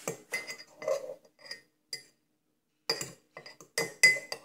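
A metal fork clinking and scraping against the inside of a ceramic mug of mashed orange, in quick bursts of sharp ringing clinks, loudest about four seconds in.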